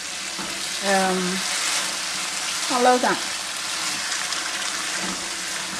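Shrimp and eggplant curry sizzling steadily in a nonstick wok while a silicone spatula stirs it. The coconut-milk sauce has cooked down thick.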